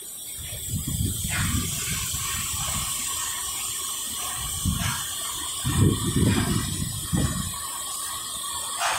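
CNC seam welding machine for stainless steel sinks at work: a steady hiss with irregular low rumbling swells.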